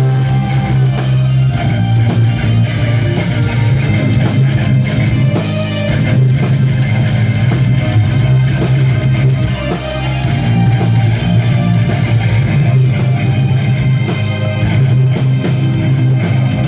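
Live heavy metal band playing an instrumental passage between verses: electric guitars, bass and drum kit, with no singing.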